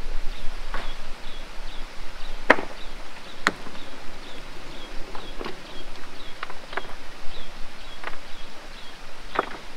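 Hand tools striking stone and earth in irregular sharp knocks, roughly one a second, with the loudest two about a third of the way in. A faint high chirp repeats about two to three times a second behind them.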